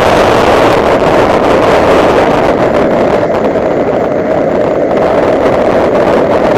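Honda Civic Si's 2.0-litre four-cylinder engine running hard at speed, mixed with loud wind and road noise on the microphone.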